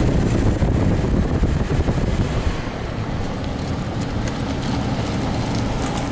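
Steady low rumble of a wheeled cart rolling along, with wind buffeting the microphone; the rumble eases slightly a few seconds in.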